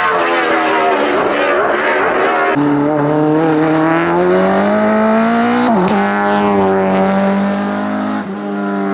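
Race car engine at full throttle on a hillclimb. It climbs in pitch through the revs, and twice the pitch drops suddenly as it shifts up, about a quarter of the way in and just past halfway, then it holds a high steady note.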